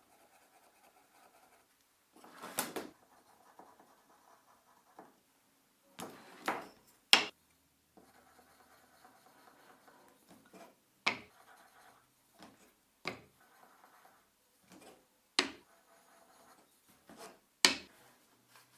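Household handling sounds: a string of separate sharp knocks and clatters, as of objects being picked up and set down, about every two seconds, with faint rubbing and scraping between them.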